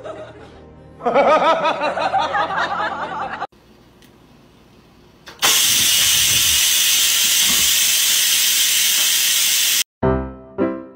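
A cat meowing in drawn-out calls of wavering pitch, then, after a short pause, an electric pressure rice cooker venting steam with a loud, steady hiss for about four seconds that cuts off suddenly.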